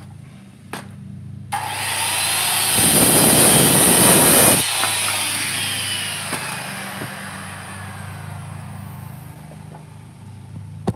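Corded worm-drive circular saw started up about a second and a half in, cutting through a wooden board, loudest for a second or two during the cut. After the cut the blade spins down with a slowly falling whine over several seconds.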